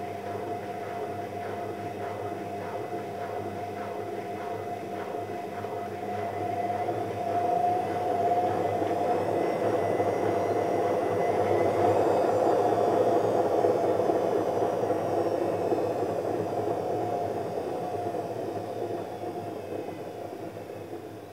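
A steady machine whir with a constant hum, swelling louder through the middle and easing off toward the end.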